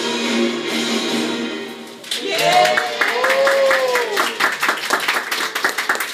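A small group of people singing together hold their final note, which fades out just before two seconds in. Hand clapping and voices calling out in cheers then follow.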